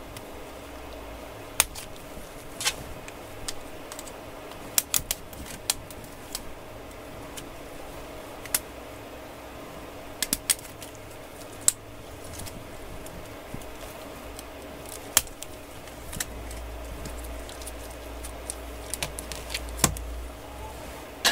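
Scattered, irregular sharp clicks and snaps of a Wiko View 2's middle frame clips being pried loose with a thin tool around the phone's edge, over a faint steady hum.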